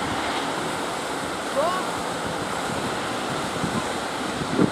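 Steady rush of sea waves breaking, with wind buffeting the microphone. A brief rising call sounds once about one and a half seconds in.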